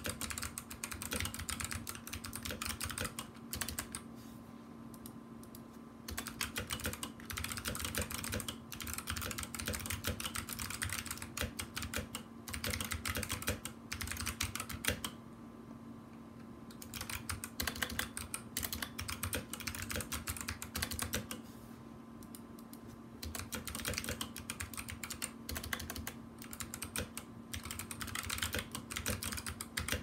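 Fast typing on a Drop CTRL mechanical keyboard fitted with Kailh Box White switches: a dense run of key clicks, broken by three short pauses.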